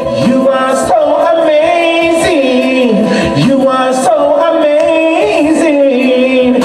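A man singing into a handheld microphone, holding long notes that slide up and down in pitch.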